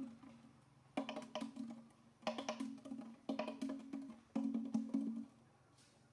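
Percussive music: short phrases of quick wood-block-like clicks over a low held tone, repeating about once a second, stopping near the end.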